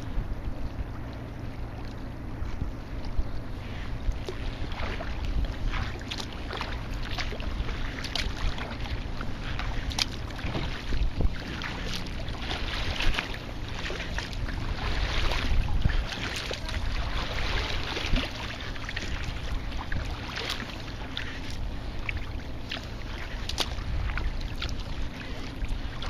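Water lapping and splashing against a kayak with many small irregular splashes, over a steady low rumble of wind on the microphone.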